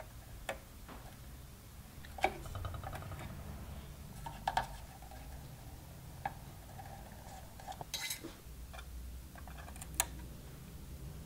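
Small metal hand tools clinking and tapping against a turret board: tweezers and a soldering iron tip knocking on the metal turrets and component leads. A handful of scattered light clicks over a low steady hum, the sharpest about two seconds in and near the end.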